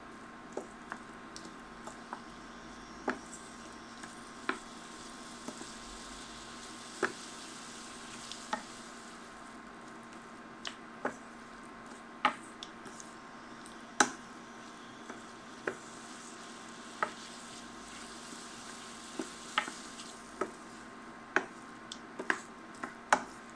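Wooden spoon stirring diced vegetables and mushrooms sweating in butter in a metal frying pan: a soft steady sizzle, with sharp irregular clicks of the spoon against the pan that come closer together near the end.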